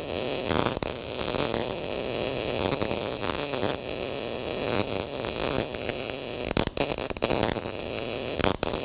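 MIG (gas metal arc) welding arc crackling steadily as the wire feeds, laying padding beads to fill a wide gap between steel plates. The arc breaks off briefly a few times in the second half.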